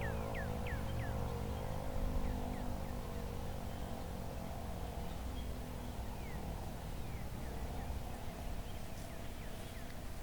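Fedelcode dual-rotor Mach 5 outdoor warning siren winding down after its full alert, its stacked tones slowly falling in pitch and fading away. Birds chirp throughout.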